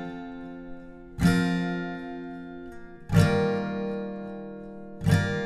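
Background music: acoustic guitar strumming slow chords, one strum about every two seconds, each left to ring out and fade.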